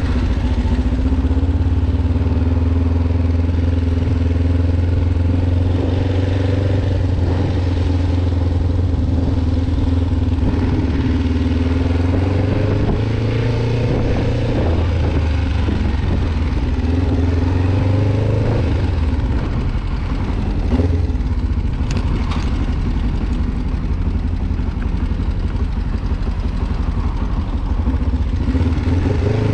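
Kawasaki Ninja 500R's parallel-twin engine running while riding, its pitch rising and falling several times as the revs change, with a brief drop about two-thirds of the way through.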